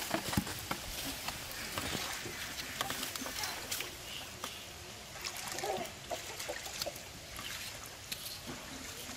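Hands digging and stirring in wet mud and muddy water: irregular squelches, small splashes and wet slaps, with many short clicks.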